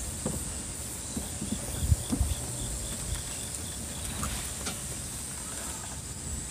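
Insects calling steadily, a high hiss with a fainter chirp repeating two or three times a second, over soft thumps and knocks as a man steps about on the fishing platform and sits down in a folding chair.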